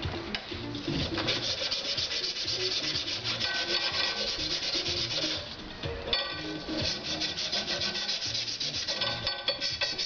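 Hand sanding of a steel rod clamped in a bench vise: quick, continuous abrasive rubbing strokes, with a short pause about six seconds in.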